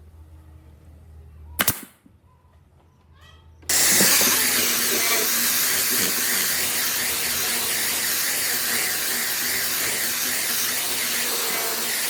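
A single sharp crack about two seconds in, then a loud, steady hiss of compressed air that starts abruptly about four seconds in and keeps going.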